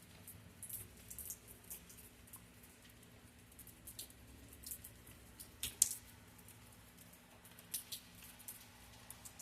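Scattered raindrops ticking and dripping close to the microphone in a thunderstorm: irregular light taps, a few a second, the loudest about six seconds in, over a faint low hum.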